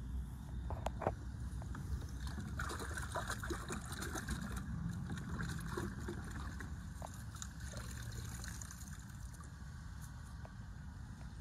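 Water sloshing and trickling in a plastic mop bucket as a hand dips and wrings out a cloth, with small irregular splashes and drips.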